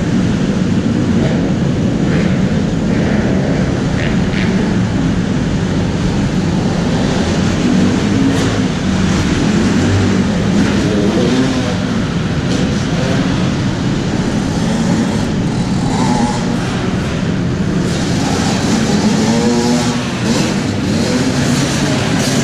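Motocross bikes running and revving on an indoor dirt track, their engine pitch rising and falling as riders take the jumps, inside a large hall.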